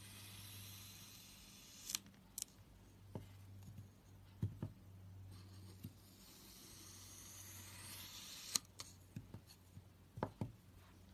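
Slime being pressed and handled, giving a dozen or so sharp pops and clicks at irregular intervals over a faint steady hum and hiss.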